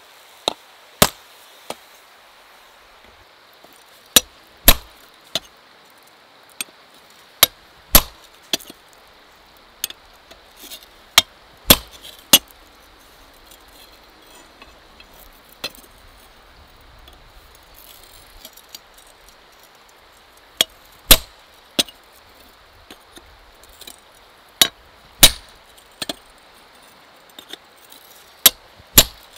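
Hand hammer striking hot mild steel on a small block anvil, then a hot-cut chisel held on the bar to cut a slot: sharp metallic blows with a short ring, in irregular groups of two or three, with a pause of several seconds in the middle.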